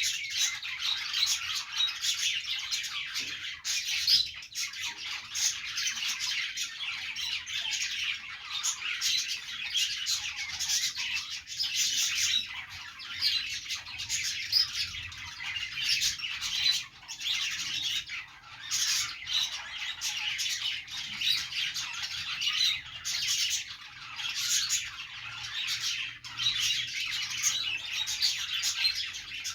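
Several pet budgerigars (budgies) chattering continuously, a dense run of overlapping chirps and warbles with frequent squawks.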